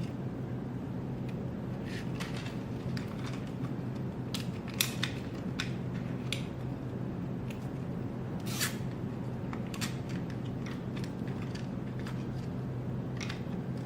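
Small plastic clicks and handling noises, scattered a few seconds apart, as a small nylon zip tie is threaded through its head and pulled tight, over a steady low hum.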